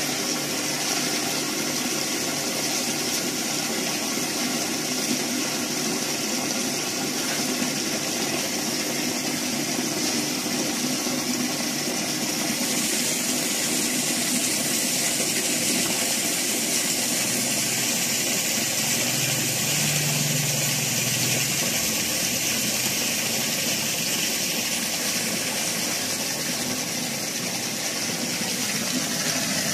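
A small motor running steadily, a constant hum with a hiss over it.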